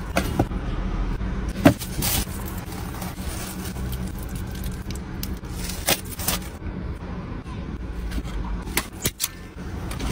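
Steady low hum of a parked car's cabin, with a few short, sharp clicks and crinkles of takeaway food packaging being handled.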